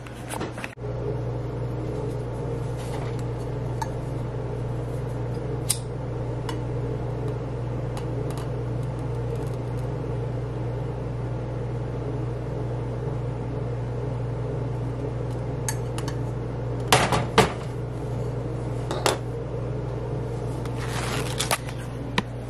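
A kitchen appliance running with a steady low electrical hum, with a few scattered clinks and knocks of kitchenware on top, a couple of louder ones late on.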